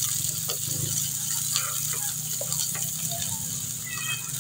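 Chopped garlic and green onion whites sizzling in hot oil in a nonstick frying pan, with a spatula scraping and clicking against the pan as they are stirred. A steady low hum runs underneath.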